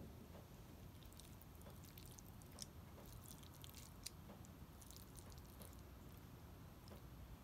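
Faint soft squishing of sauce-coated spaghetti being moved with metal tongs, with a few light clicks of the tongs against the plate.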